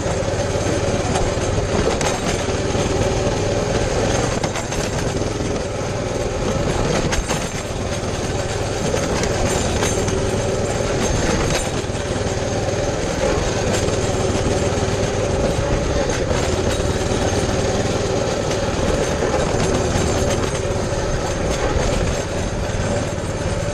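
Baja 200cc motorbike's single-cylinder four-stroke engine running at a fairly steady pace while riding over rough grass, with the bike knocking and rattling over the bumps.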